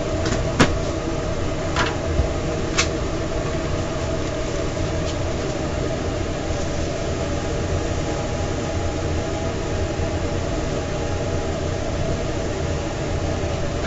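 Steady mechanical drone of food-trailer kitchen equipment, with a few sharp clicks in the first three seconds.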